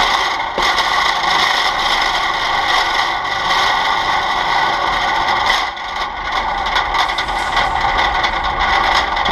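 Wire shopping cart being pushed along: wheels rolling and the metal basket rattling steadily, picked up loudly by a camera mounted on the cart's handle.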